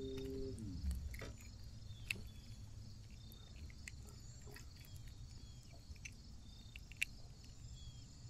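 Faint steady insect chirring over a low rumble, with a few light clicks. A low hum slides down and stops about half a second in.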